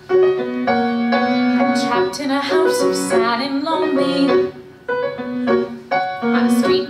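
Grand piano playing the introduction to a musical-theatre song: a run of chords and melody notes, with a short pause a little before the end.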